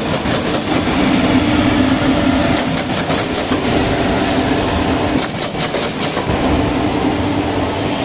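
Automatic carton partition assembling machine running: a steady mechanical hum with three stretches of rapid clattering, each about a second long and coming about every two and a half seconds.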